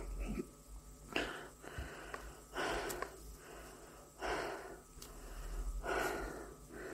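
A person breathing heavily with a wheezy, rasping sound: about four deep breaths, one every second and a half or so.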